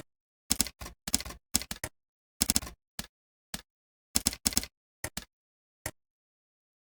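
Typing on a computer keyboard: irregular bursts of key clicks with silent gaps between them, thinning to single keystrokes near the end.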